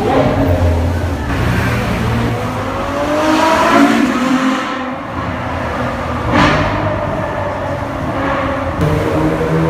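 Ferrari F12berlinetta V12 accelerating hard past in a road tunnel, its engine note rising to a peak as it goes by about four seconds in. A single sharp crack follows a couple of seconds later.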